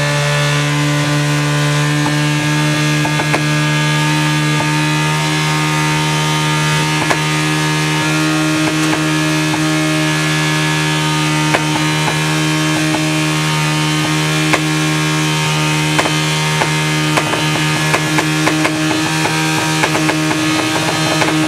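Yamaha R1 inline-four motorcycle engine running loud and unmuffled at a steady speed while being run to destruction. Sharp clicks and knocks come through it, growing more frequent in the last few seconds.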